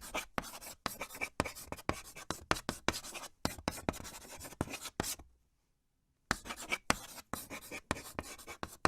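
Rapid, uneven scratching or scraping strokes, several a second, that stop for about a second midway and then start again.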